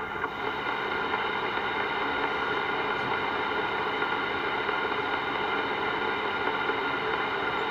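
CB radio receiver putting out steady static hiss with a faint steady hum running through it, between transmissions.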